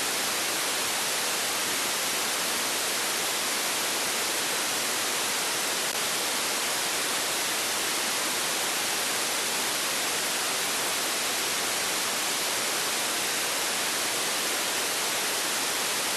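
Steady, even hiss of an unsquelched FM receiver, the SDR# software radio tuned to 29.52 MHz on the 10-metre amateur band, with no station transmitting: open-squelch FM noise between transmissions.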